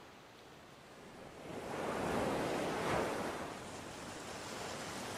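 Ocean surf: a wave swells in about two seconds in, loudest near three seconds, then settles into a steady wash.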